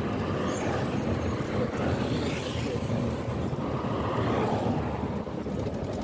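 A moving vehicle's engine and road noise heard from inside the cabin, a steady rumble.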